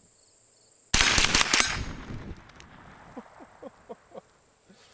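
A semi-automatic .22 LR rifle, the Smith & Wesson M&P 15-22, fires a fast string of incendiary rounds at a butane canister. There are about four shots in under a second, starting about a second in, and then a fading rumble.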